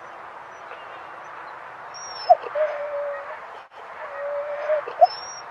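A Siberian husky whining twice, each time a quick rising yip followed by a held whine of under a second, over steady background noise.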